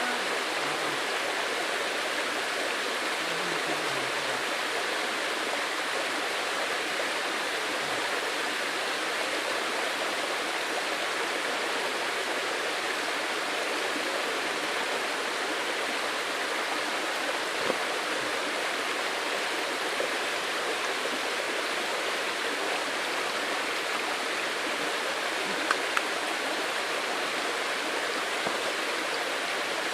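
Steady rush of flowing stream water, an even hiss with a few faint ticks.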